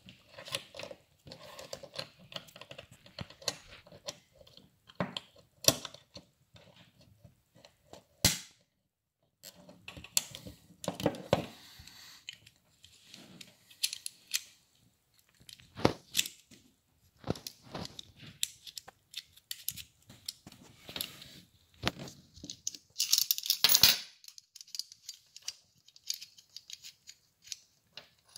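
Small steel parts of an M1 Garand trigger group clicking and scraping as they are handled and fitted into the trigger housing against a stiff new hammer spring. Sharp clicks come at irregular intervals, with a quick run of clicking about three quarters of the way through.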